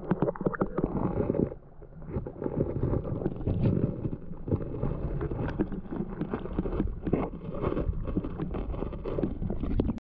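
Creek water heard through a camera held underwater: muffled gurgling and rumbling with many small crackles and knocks, briefly quieter about a second and a half in.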